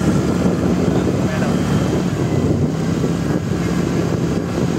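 Motor scooter running steadily while riding, with wind noise on the microphone.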